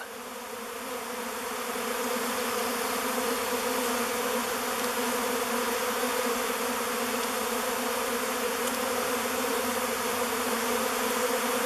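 A swarm of honey bees buzzing as they fly into a log hive, making a steady hum. The hum grows a little louder over the first two seconds and then holds.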